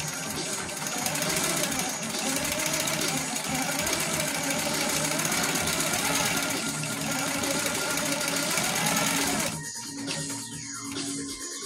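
Baby Lock Coronet quilting machine stitching at speed, a fast steady needle rattle that stops about two seconds before the end.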